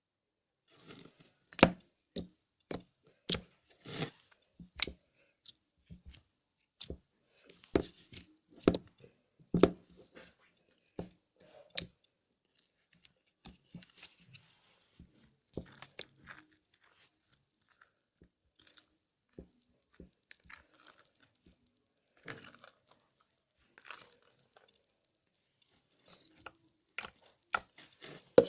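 Slime being handled, squeezed and poked, giving irregular sharp clicks and pops, several a second in the first dozen seconds and sparser after.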